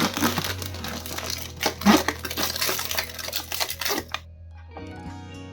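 Plastic food packaging crinkling and rustling as it is handled, over background music. The crinkling stops about four seconds in, leaving the music alone.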